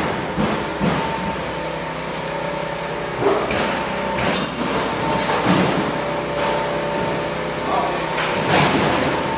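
Scattered knocks and bangs of demolition work in the stripped building, a few seconds apart, over a steady electrical-sounding hum.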